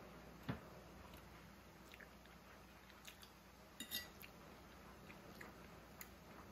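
Quiet eating: a few soft clicks and clinks of a metal fork against a dinner plate, the loudest a short ringing clink just before four seconds in, with faint chewing between.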